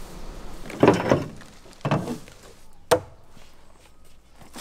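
Three wooden knocks about a second apart, the last one short and sharp: an axe chopping into the soft-wooded trunk of a Gyrocarpus americanus (sampan tree).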